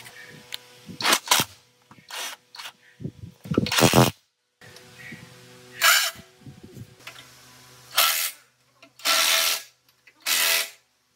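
A power tool running in about seven short bursts of under a second each, the loudest near the end, with abrupt cuts to silence between some of them.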